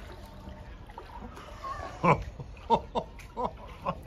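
A voice giving five short calls about half a second apart, each falling in pitch, starting about halfway through, over faint water lapping.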